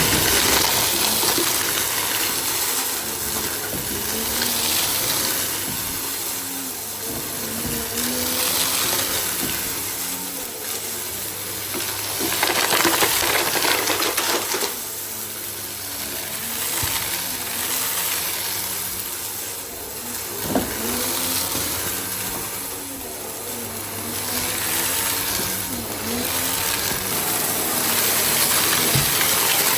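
Goodmans TurboMax vacuum cleaner running, its motor hum and high whine steady while the airflow hiss swells and fades every few seconds. Scattered clicks and rattles sound through it, with one sharp click about two-thirds of the way through.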